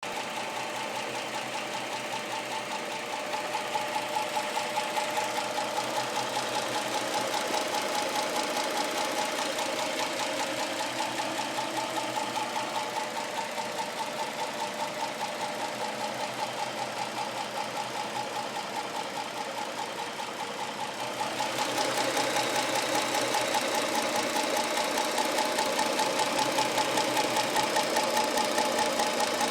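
A 2010 Dodge Challenger's 3.5-litre V6 running steadily with a fast, even ticking that keeps pace with the engine, which grows louder about three-quarters of the way through. The owner wonders whether it is a failing rocker arm or poor oil.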